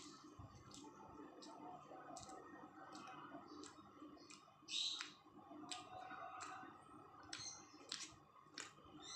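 Faint wet mouth clicks and smacks of someone chewing soft flatbread and chickpea dal, about one or two a second, with a louder smack about five seconds in, over a faint steady fan hum.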